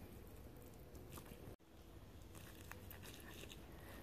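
Faint sounds of a knife slicing meat and membrane away from the backbone of a deer carcass, with a few small clicks over a steady low hum. The sound cuts out for a moment about a second and a half in.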